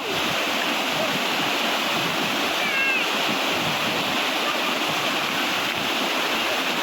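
Waterfall water rushing steadily, with a brief high chirp about three seconds in.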